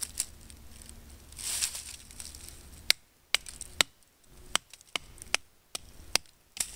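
A wooden stick used as a baton, knocking a knife down through a piece of pine on a stump: about nine sharp knocks starting about three seconds in, roughly two a second, after a short scratchy rustle.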